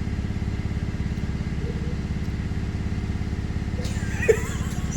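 Steady low mechanical drone with a fast, even pulsing rumble, like a running engine or motor. A short, sharp knock about four seconds in.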